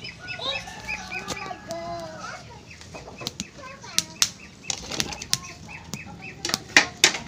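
Fowl calling, with bending clucking calls early on and a quick, regular run of short high chirps, broken by scattered sharp clicks.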